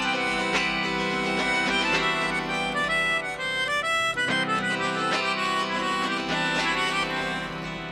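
Instrumental passage: melodica holding reedy sustained notes over strummed autoharp and drums. It grows quieter near the end.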